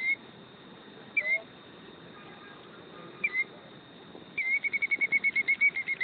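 Killdeer alarm calling: single sharp, down-slurred notes a second or two apart, then from about four and a half seconds in a fast trill of the same note repeated about seven times a second.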